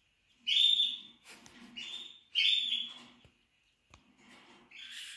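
Chinese painted quails (king quails) calling: about four short, high whistled calls in a few seconds, the first and third the loudest.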